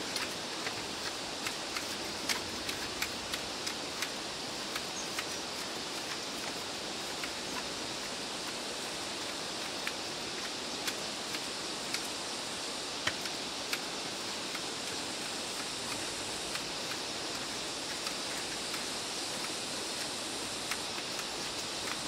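Steady outdoor hiss with a brighter high band, with irregular sharp ticks and snaps throughout, more of them in the first few seconds.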